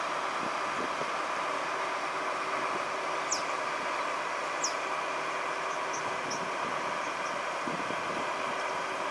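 Trolley-style city bus idling at a stop: a steady engine and fan hum. Two short, high, falling chirps stand out about three and a half and four and a half seconds in.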